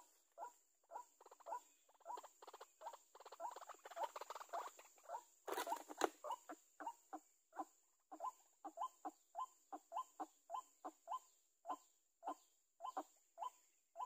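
White-breasted waterhen calls: short notes repeated two to three times a second, with a brief rustle ending in a sharp click about six seconds in.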